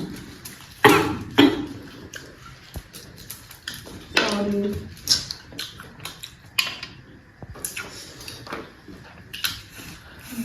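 Spoons and dishes clinking and scraping as rice and curry are served and eaten, in an irregular string of short knocks and clicks with a longer scrape about four seconds in.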